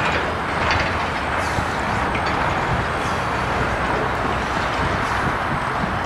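Steady outdoor roar with a low rumble, broken by a few faint knocks.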